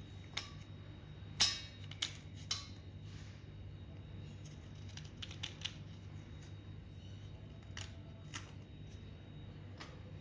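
A metal blade scraping and breaking chunks off a soaked block of broken-white clay, with scattered crisp cracks and crumbling clicks, the loudest about one and a half seconds in. A low steady hum runs underneath.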